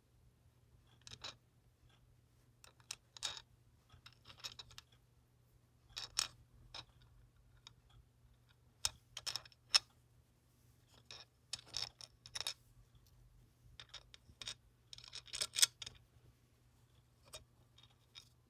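Small hard objects being handled: scattered short clicks and scraping rubs in irregular clusters, the sharpest clicks about nine and fifteen seconds in.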